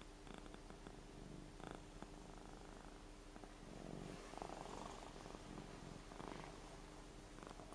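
Ragdoll cat snoring faintly: soft, breathy snores about every one to two seconds, the strongest about four seconds in.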